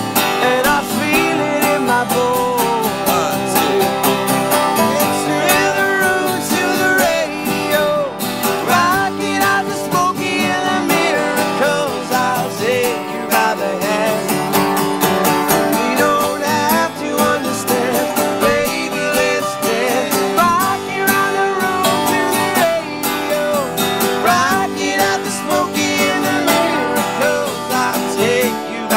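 Acoustic country-style band music: strummed acoustic guitars with a resonator guitar played lap-style with a slide, its notes gliding between pitches.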